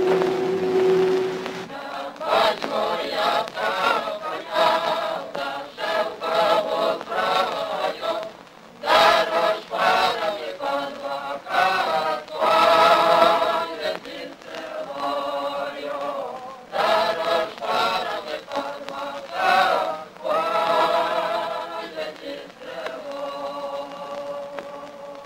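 A choir singing a slow song in long phrases with short breaks, heard on an old 1930s newsreel soundtrack. A held tone from the preceding music fades out about two seconds in.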